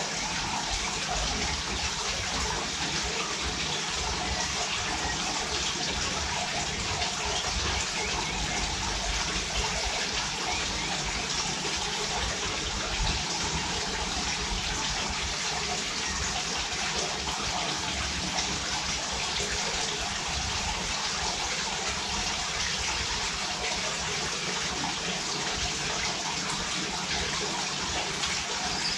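Steady rushing noise like running water, even and unbroken throughout.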